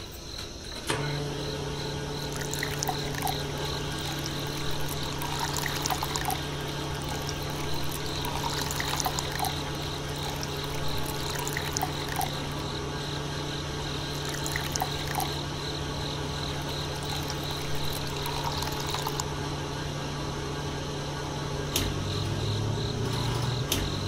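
Small electric water pump on a DIY model, switched on about a second in and humming steadily, with water pouring and trickling out of a plastic pipe. The hum drops in pitch near the end.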